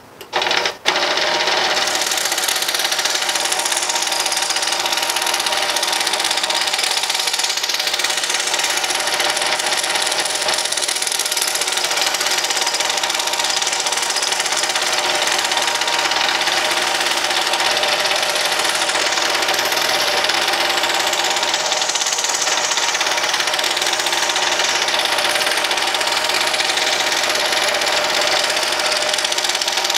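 A scroll saw switched on with a click about a second in, then running steadily as its reciprocating blade cuts fretwork in a wooden clock face.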